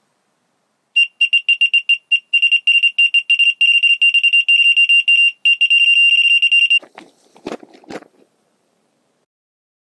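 Electronic carp bite alarm sounding a run: rapid high-pitched beeps, several a second, that run together into a near-steady tone before cutting off sharply. A fish has taken the bait and is pulling line. A couple of dull knocks follow.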